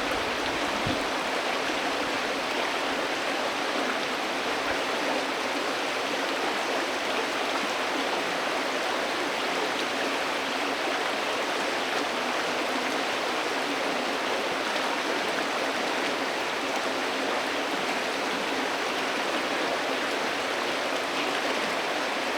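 A river flowing, an even, steady rush of water with no breaks or other sounds.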